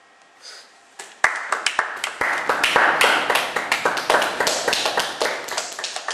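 A small group clapping. It starts suddenly about a second in, with many irregular claps, then thins out near the end.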